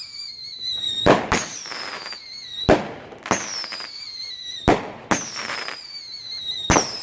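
Showtime Magic Crackles 200-gram firework cake firing shot after shot: about seven sharp reports in irregular pairs and singles. Each is followed by a high whistling tone that falls in pitch for about a second.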